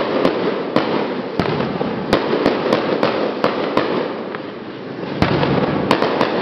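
Fireworks going off: a dense crackling din with sharp bangs at irregular intervals, about every half second, and a louder burst just after five seconds in.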